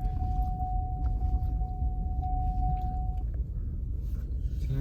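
Car cabin rumble of the engine and tyres while driving down a steep mountain road, with a thin steady high tone that stops about three seconds in.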